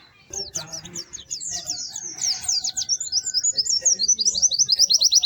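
White-eye (pleci) singing: a string of quick, high chirps that speeds up about halfway through into a fast, even trill of notes.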